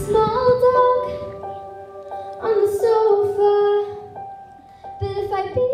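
A young girl singing solo into a handheld microphone in a stage musical. She holds long notes that step from pitch to pitch, with a softer stretch about four seconds in.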